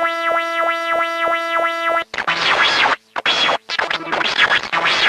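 Electronic music: a steady synthesized tone pulsing rapidly and evenly, cut off abruptly about two seconds in by harsh, distorted glitch noise that drops out briefly twice.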